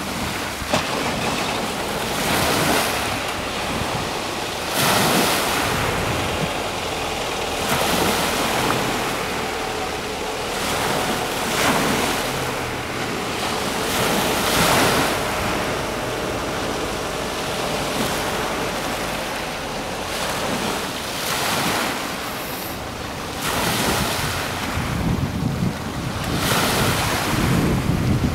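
Choppy sea water washing in, swelling every two to three seconds, with wind buffeting the microphone, heavier near the end.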